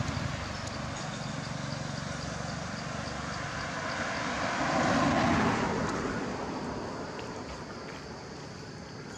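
A motor vehicle passing by: a rushing noise that grows louder to a peak about five seconds in, then fades away.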